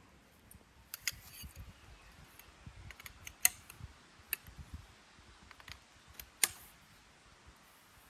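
A string of irregular sharp clicks and light knocks, the loudest about three and a half and six and a half seconds in.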